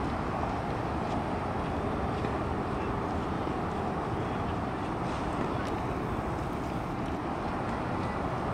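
Steady hum of city traffic, an even noise with no single event standing out.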